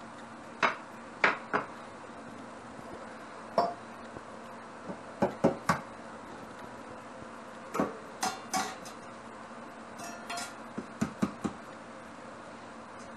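Stainless steel mixing bowls clinking and knocking as they are handled and set down on the counter and cutting board: about a dozen sharp, scattered clinks, a few ringing briefly.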